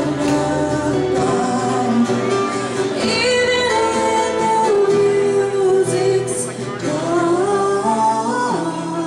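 A woman and a man singing together in harmony, her voice leading, over acoustic guitar accompaniment in a live performance.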